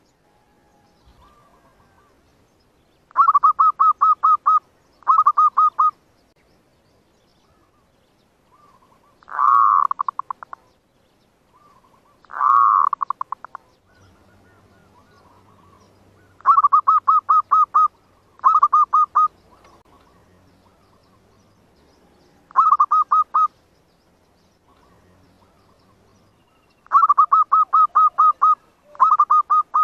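Zebra doves cooing: seven short bursts of rapid staccato coos, each about a second long, with two longer swelling calls in between, about ten and thirteen seconds in. This is the territorial cooing used as a decoy call to lure wild zebra doves.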